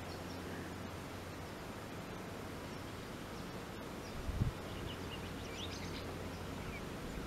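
Quiet riverside outdoor ambience: a steady faint background with a few short, high bird chirps around the middle, and one brief low thump about four seconds in.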